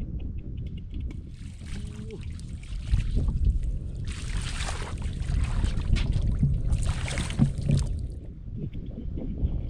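Water splashing and sloshing in a flooded rice field, over a steady low rumble, with two louder spells of splashing about four and seven seconds in.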